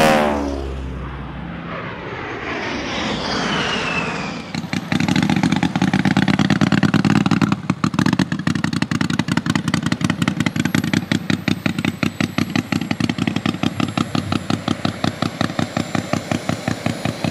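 Whooshing intro sound effects with sweeping pitch glides, then the gasoline engine of a large-scale R/C P-47 Thunderbolt model starts up loud on the ground. About three seconds later it drops back to a lower, rapidly pulsing idle.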